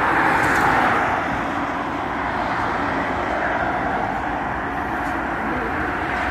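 Steady motorway traffic noise: a continuous rush of vehicles going by, with no single engine standing out.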